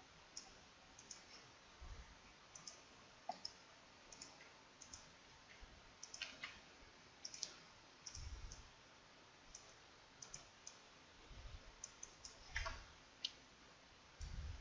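Faint, irregular computer mouse clicks, a dozen or more scattered through, with a few soft low thumps between them.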